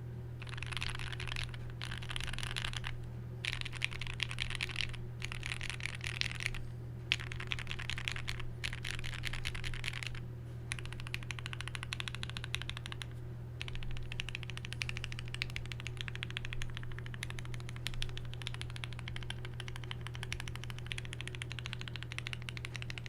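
Typing on a modded Tofu65 mechanical keyboard with lubed, filmed Gateron Black Ink linear switches on a brass plate, foam-modded and O-ring mounted, under GMK Dracula keycaps: fast, continuous keystrokes in runs of a few seconds, broken by short pauses.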